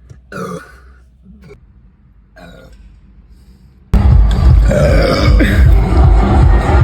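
A person belching: a brief sound about half a second in, then a very loud, drawn-out burp that starts suddenly about four seconds in and is still going at the end.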